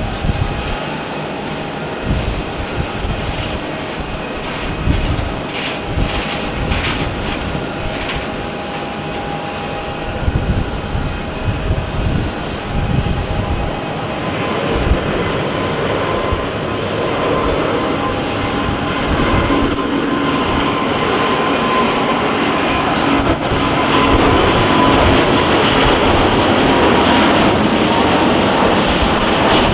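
Airbus A350-900's Rolls-Royce Trent XWB turbofan engines running at low thrust as the airliner lines up. About halfway through they spool up to takeoff thrust, and the jet roar grows steadily louder as the takeoff roll begins.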